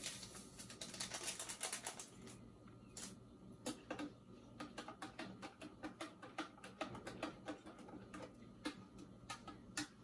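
Rustling and a dense patch of small clicks in the first two seconds as a dry yeast packet is handled, then a spoon tapping against a small dish, several light clicks a second, as the yeast is stirred into warm water to dissolve.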